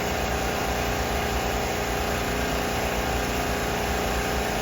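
A vehicle engine running steadily, with a steady hum of several tones.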